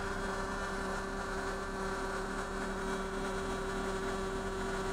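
Cummins 6CTA 8.3 diesel engine idling steadily just after being started, heard from the driver's seat as an even hum.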